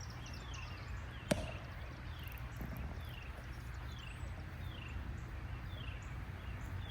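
Riverside ambience: a small animal's short high chirp, falling in pitch, repeated about once a second over a low steady rumble. A single sharp click about a second in is the loudest sound.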